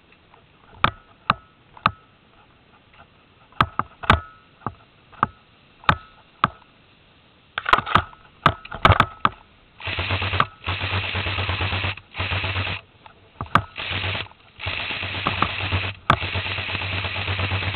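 Airsoft guns firing: scattered single shots through the first seven seconds, then, from about ten seconds in, repeated long bursts of full-auto fire close by, each a second or so of fast, even rattling that stops abruptly.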